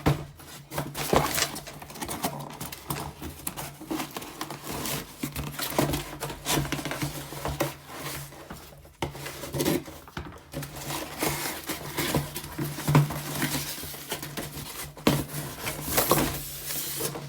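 A cardboard shipping box being opened and its contents handled: a busy run of rustling, scraping and small knocks, with a steady low hum underneath.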